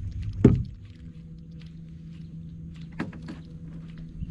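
Small boat's electric trolling motor humming steadily. About half a second in there is one sudden loud thump that drops in pitch, and a heavier low rumble stops with it. Two lighter knocks follow about three seconds in.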